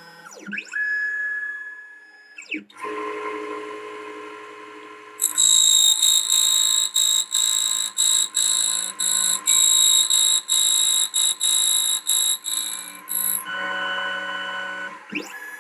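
Automated key cutting machine cutting a key blank. Pitched motor whines glide as the carriage positions, then from about five seconds in the spinning cutter runs loud and high-pitched, cutting in and out about twice a second as it works the notches into the blade. It eases back near the end.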